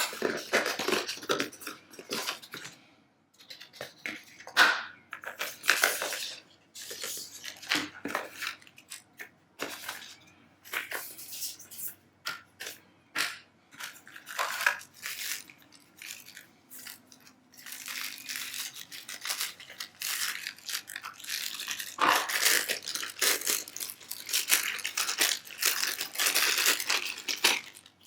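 Packaging handled by hand during an unboxing: irregular crinkling, rustling and tapping of cardboard and plastic, with short scrapes and knocks.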